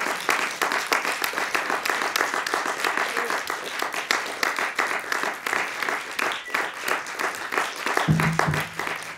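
Audience applauding steadily. About eight seconds in, a few low notes from a double bass sound under the clapping.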